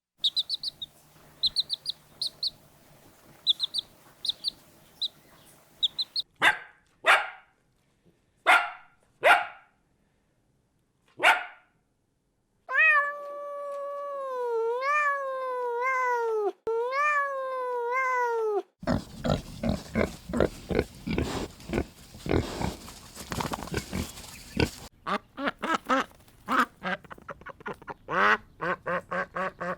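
A series of different animals' calls cut one after another: quick high chirps, then five short calls, then a long call that wavers up and down in pitch, then a stretch of dense noisy calling and a run of rapid short calls near the end.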